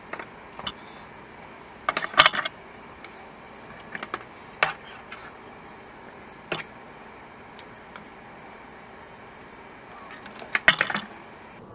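Black slotted spatulas clicking and clattering against an electric griddle as an omelette roll is lifted and turned. The knocks come singly every second or two, with a quick run of clatters near the end, over a faint steady hiss.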